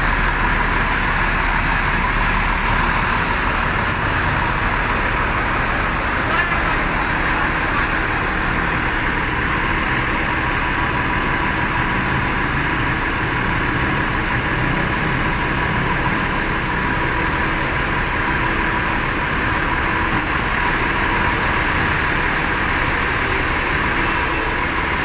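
Intercity bus's rear diesel engine idling with an uneven, limping beat ('pincang'), which the crew put down to dirty diesel fuel clogging the fuel line.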